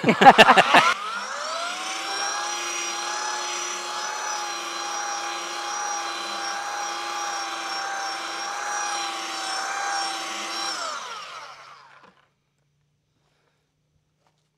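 Electric power sander on a black walnut mantel: a loud clatter in the first second, then the motor spins up and runs with a steady whine for about ten seconds before winding down and stopping.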